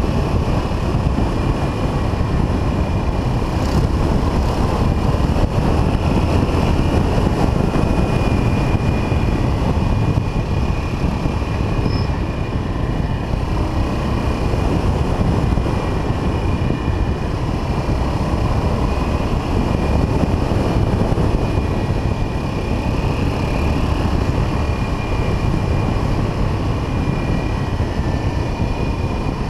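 Riding noise from the 1979 Yamaha XT 500's single-cylinder four-stroke engine at a steady cruise, mixed with wind rushing over the camera. The level stays even, with no gear changes or revving.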